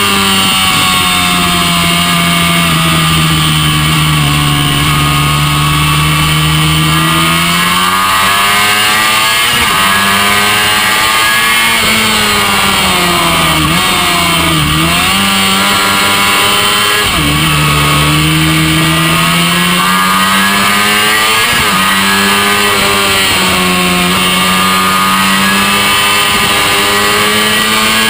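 Honda NC30 (VFR400R) race bike's 400 cc V4 engine under racing load on track, heard from on board. The engine note falls and rises repeatedly, with sharp drops in pitch at gear changes around the middle, over steady wind noise.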